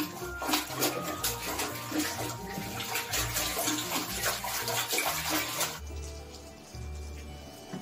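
A puppy splashing about in the water of a toilet bowl, a busy run of sloshes and slaps that stops about three-quarters of the way through, over background music with steady low bass notes.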